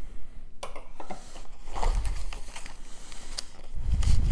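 The seal on a plastic-wrapped model-kit box being broken and the packaging torn open: scattered crinkling, crackling and sharp clicks, with a dull handling knock near the end.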